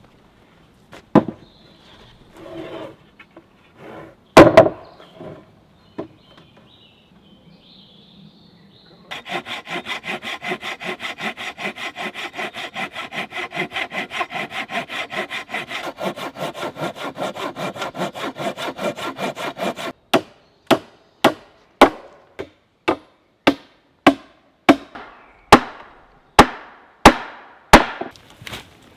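Timber work with a hand saw. A few scattered knocks of wood come first. Then a saw cuts through wood with fast, even strokes, about four a second, for roughly eleven seconds, followed by a steady series of sharp wooden knocks, about one every second, until the end.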